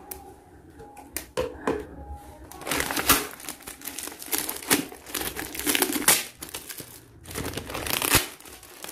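Plastic packaging crinkling as hands pull a clear plastic bag off a black plastic courier mailer. A few light handling clicks come first, then steady crinkling from about two and a half seconds in, with a short pause near the end.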